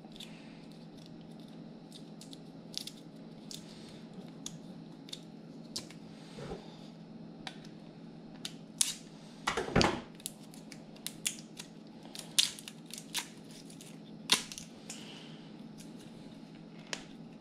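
Plastic wrapping being handled and cut open with a folding knife: scattered small clicks and crinkles, with a louder crunch a little before ten seconds in.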